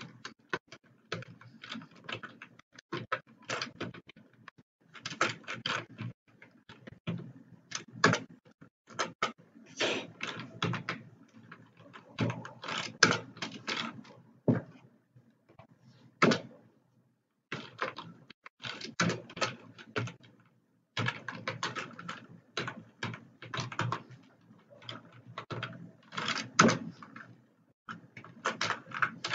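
Computer keyboard typing: keys clicking in quick runs, with short pauses between the runs.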